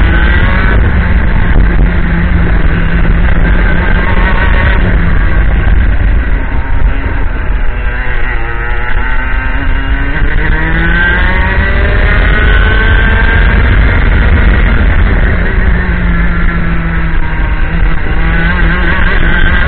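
IAME X30 125cc two-stroke kart engine running hard on track, its pitch dropping as it comes off the throttle for corners and climbing again as it accelerates, several times over.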